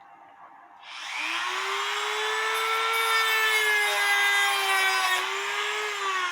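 Electric grinder switched on about a second in, its whine rising to speed and then running steadily with a loud hiss, grinding down the broken tips of a metal tool.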